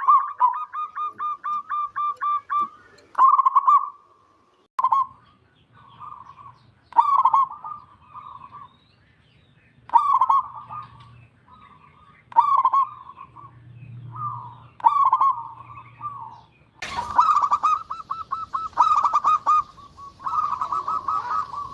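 Zebra dove (perkutut) cooing: quick staccato, rattling coo phrases repeated every two to three seconds, growing louder and busier about seventeen seconds in.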